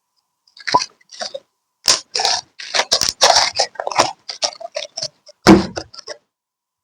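Glitter slime being squished and pressed by hand: an irregular string of short wet squelches and clicks, the loudest about five and a half seconds in.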